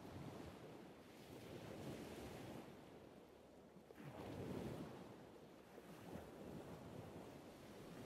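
Faint, distant ocean surf washing on a beach, a steady rushing hiss that swells about two seconds in and again, most strongly, a little past the halfway point.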